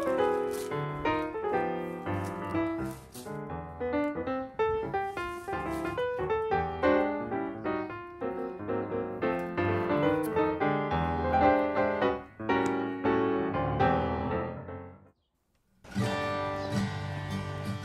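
Background piano music that stops abruptly about fifteen seconds in. After a second of silence, a new piece with strummed acoustic guitar begins near the end.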